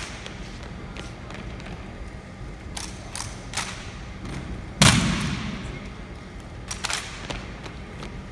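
Drill rifles being handled in a rifle drill routine: scattered sharp clacks, and one loud thud about five seconds in that echoes through the hall.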